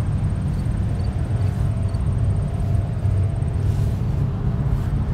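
Steady low engine rumble, with faint steady hums above it.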